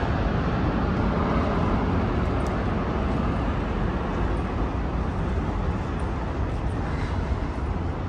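Steady outdoor background noise: a heavy, even low rumble with a hiss above it, no separate events.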